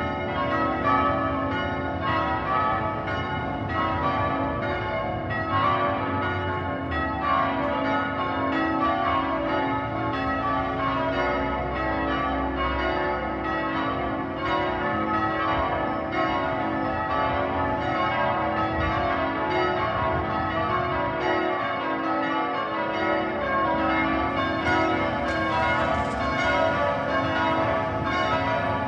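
Church tower bells in change ringing: the bells strike one after another in a steady, unbroken sequence, their tones overlapping and ringing on.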